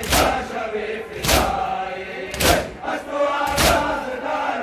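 A crowd of Shia mourners chanting a noha together while beating their chests in unison (matam). The beats land as sharp, loud group slaps about once a second, four times, over the chanting.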